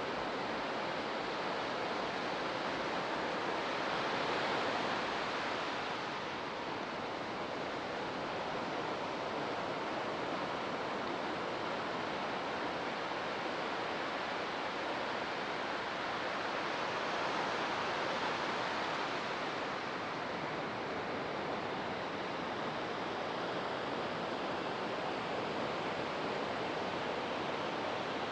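Ocean surf washing onto a beach: a steady rush of breaking waves, swelling slightly about four seconds in and again past halfway.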